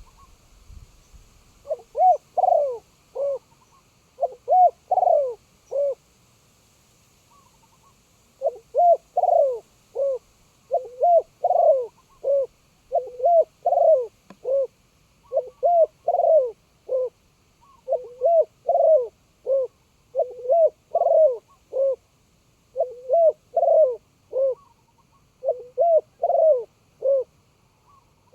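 Spotted dove cooing close by: loud phrases of three or four short coos, repeated every two to three seconds.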